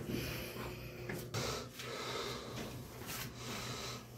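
A person's heavy breathing and rustling while squeezing into a too-small space, in several short, breathy puffs.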